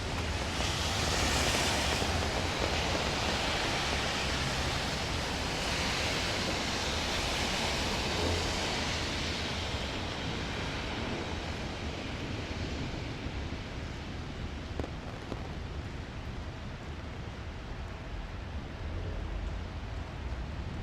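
Steady rain falling on a city street, an even hiss over a low rumble. The hiss swells twice in the first half, then eases off.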